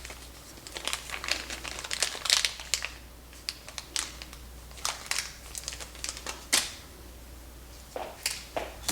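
Crinkling and rustling of packaging, with scattered light clicks and taps, as a replacement 47-ohm resistor is picked out. A steady low mains hum sits underneath.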